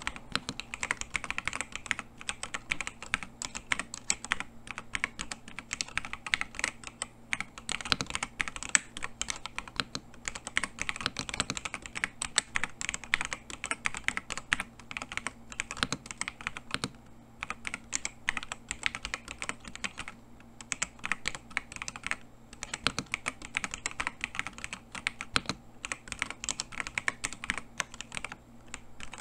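Steady, fast typing on a JamesDonkey RS2 98-layout gasket-mount mechanical keyboard fitted with linear switches: a dense run of keystroke clacks with a few brief pauses.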